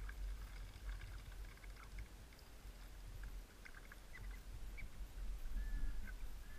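Ducks giving many short, high calls scattered throughout, with one longer whistled call near the end, over a steady low rumble.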